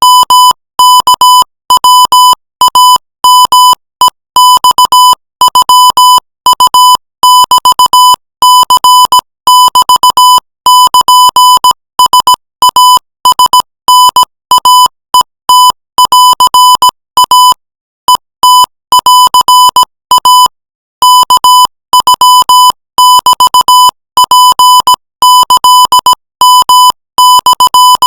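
Morse code sent at 20 words per minute as a steady beep of about 1 kHz, keyed on and off in quick dots and dashes. Short gaps separate the letters, with a longer pause about 18 seconds in and another a couple of seconds later.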